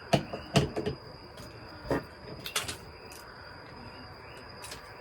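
A handful of light clicks and knocks in the first three seconds, like small objects being picked up and set down on a hard surface.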